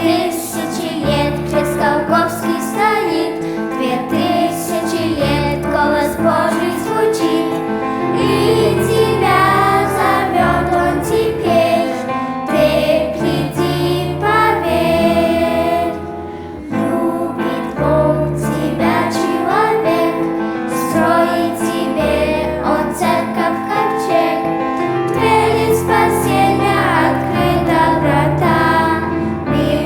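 Children's choir singing a song in Russian with instrumental accompaniment and a steady bass line.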